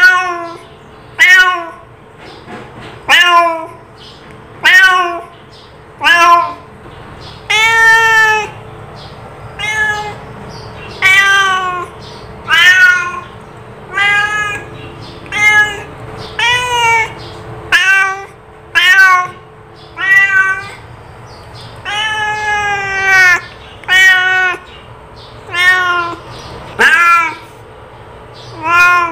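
Domestic cat meowing over and over, about one call every second or so. Each meow rises and then falls in pitch, and a few are longer and drawn out.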